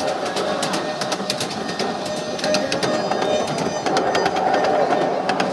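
Miniature ride-on train running along its track: frequent sharp clicks of the wheels over the rail joints over a steady running noise, with a wavering mid-pitched tone.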